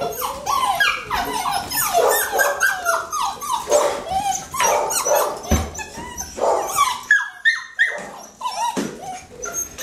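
A litter of puppies barking and yipping over one another, several high calls at a time that bend up and down in pitch, with a brief lull about seven seconds in.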